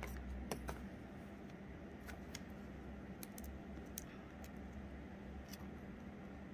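Scattered light clicks and taps of hands working on a small cardboard-and-cable-tie model, a few louder ones in the first second, over a steady low hum.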